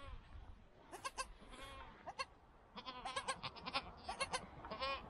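Newborn goat kid bleating faintly in a string of short, high calls, a few at first and then coming thick and fast through the second half.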